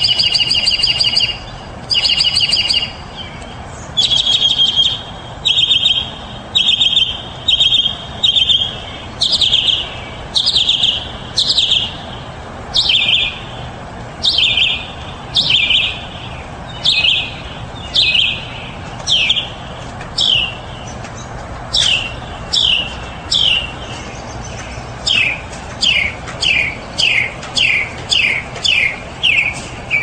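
Mockingbird singing a loud run of short phrases, about one a second, each repeated several times before it switches to a new one; each phrase is a rapid trill, and from about halfway through they become quick falling notes.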